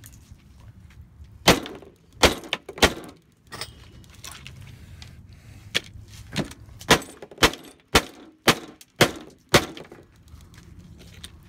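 Claw hammer smashing a broken plastic calculator on a rusty metal tabletop: a dozen or so sharp blows, a few spaced out at first, then a quick run of about two a second from around six to ten seconds in.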